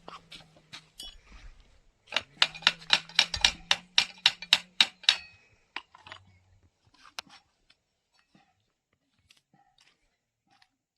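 A quick run of sharp clicks, about six a second for some three seconds, then a few scattered clicks; it sounds like hand-tool work on a motorcycle.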